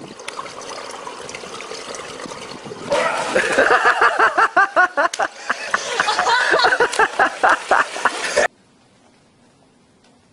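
Swimming-pool water splashing and sloshing. From about three seconds in, loud excited voices laugh and shout in quick pulses, cutting off suddenly near the end into a much quieter stretch.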